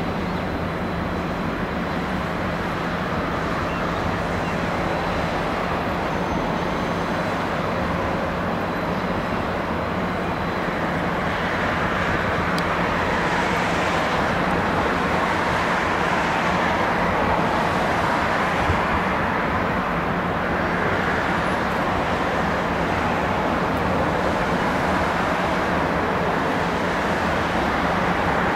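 Steady urban traffic noise mixed with the low running rumble of a V/Line N class diesel-electric locomotive moving light engine along the yard tracks, getting a little louder about halfway through as it comes closer.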